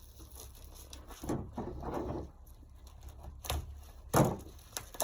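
Bubble wrap and plastic packaging being handled and rustled as a planner is worked out of it, with a few short knocks; the sharpest knock comes about four seconds in.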